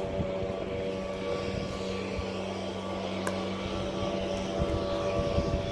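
A steady mechanical drone holding several even pitches, over a low rumble, with a single sharp click about three seconds in.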